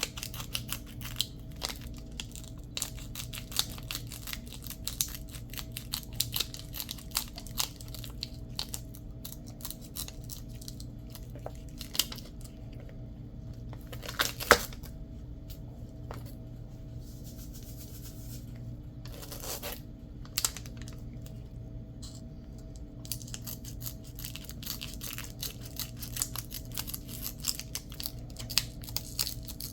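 Scissors cutting through Velcro and fabric backing: a string of short crunchy snips, thinning out midway with one louder snip, then picking up again near the end. A steady low hum runs underneath.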